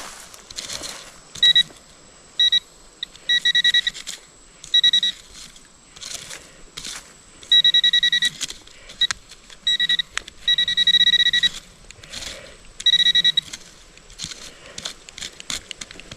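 Handheld metal-detecting pinpointer sounding in repeated bursts of a fast-pulsing high beep, short or longer as it is probed in and out of a dug hole over a target still in the soil. Brief scrapes and rustles of dirt and leaves come between the beeps.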